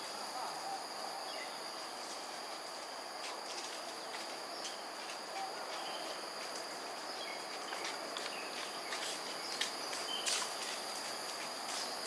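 Insects chirring in a steady high drone over an even background hiss, with scattered sharp clicks and a few short high chirps in the second half.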